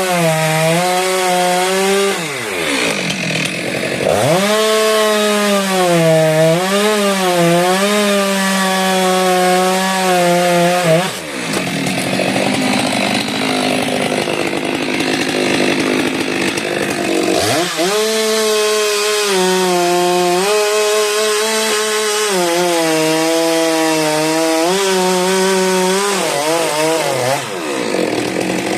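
Stihl two-stroke chainsaw running at high revs while cutting a frangipani trunk, the engine note sagging and wavering under the load of the cut. Several times the revs drop sharply and climb back.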